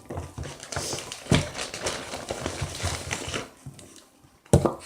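Irregular crinkling, rustling and tapping of objects being handled, with a sharp knock about a second in and a louder thump near the end.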